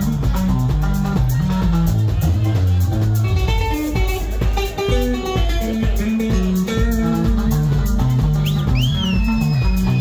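Live band playing: a busy, melodic electric bass line over electric guitar and drum kit. Near the end a high note slides up and then settles.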